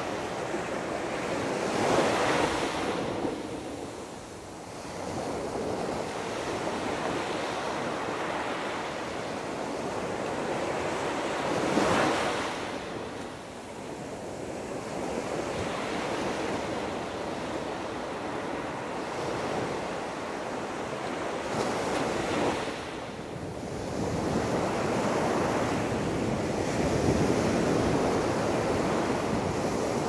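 Small surf breaking and washing up a sandy beach: a continuous wash of water, with a wave breaking louder roughly every ten seconds.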